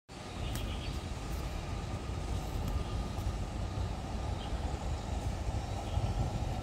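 Steady low rumble and hiss of outdoor background noise on a railway platform, with a few faint ticks. No train is passing yet.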